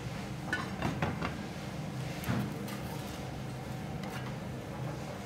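A steady low hum of kitchen machinery. A few light knocks and clinks of a metal server and plates come about half a second, one second and two seconds in, as a slice is lifted and plated.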